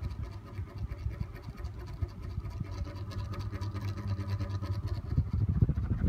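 Zhonglian mini ceiling fan running in reverse: a steady motor hum with the rush of air from its spinning blades. Near the end, the fan's airflow buffets the microphone with a rapid low fluttering.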